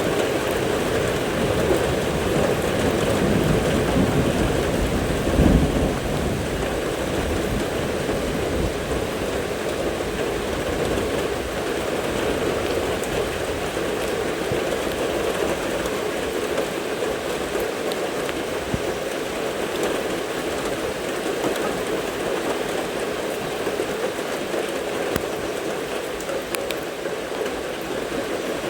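Steady rain falling throughout, with a rumble of thunder that builds in the first few seconds, peaks about five and a half seconds in, then fades away.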